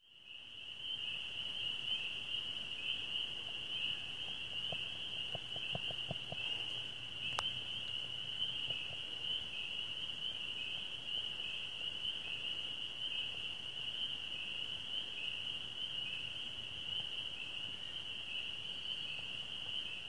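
Chorus of spring peepers: many overlapping high-pitched peeps merge into a steady, unbroken band of calling. A single faint click comes about seven seconds in.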